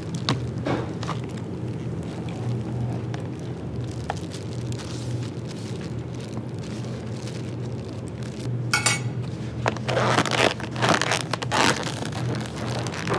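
Dishes and glassware clinking and being handled over a steady low hum, with a few sharp clicks and a busier clatter in the last few seconds.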